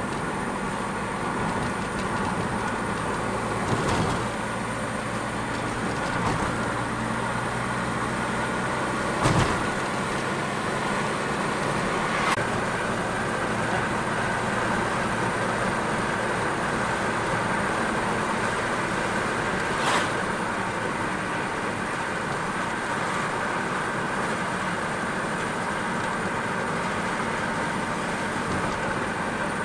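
Steady road and engine noise of a car driving, with four short knocks about 4, 9, 12 and 20 seconds in.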